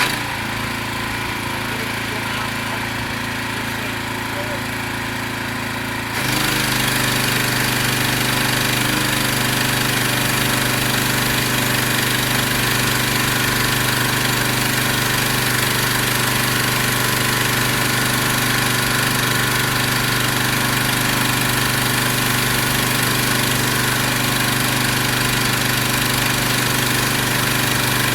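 Pressure washer running steadily; about six seconds in, the lance is fired and the hiss of the water jet joins in as the machine takes up the load, louder from then on.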